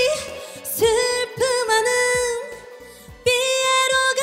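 Trot song with a female lead singer holding long, wavering notes over band backing and drum hits, with a brief quieter stretch before the last held note.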